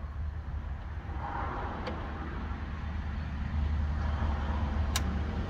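Handling noises as a van door mirror is pushed into place, with two sharp clicks, a faint one about two seconds in and a louder one about five seconds in, over a steady low rumble.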